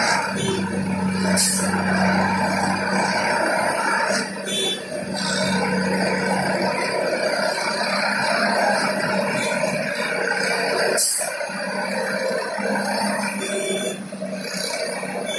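Railway track tamping machine working: a steady engine and machinery drone, with two short sharp hisses of air, one about a second and a half in and a louder one about eleven seconds in.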